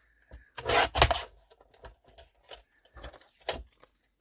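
Paper being cut on a paper trimmer, with paper handling: short, sharp scraping bursts about half a second to a second in, and again twice near three seconds.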